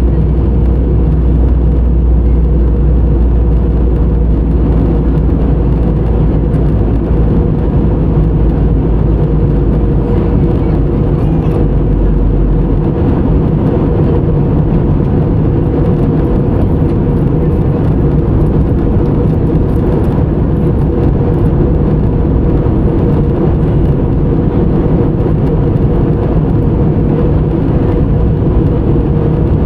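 Steady cabin noise of a jet airliner in flight: a loud, even rumble with a constant engine hum. The deepest rumble drops away about twelve seconds in.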